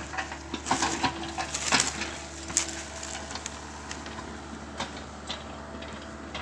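Komatsu hydraulic excavator's diesel engine running steadily while dirt, roots and broken wood crackle and snap under the machine as it works the cleared ground. The cracking is densest in the first couple of seconds, with a few single snaps later.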